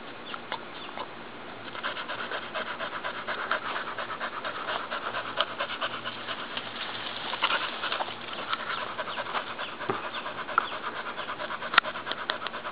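Pit bull panting quickly and steadily, with a sharp click near the end.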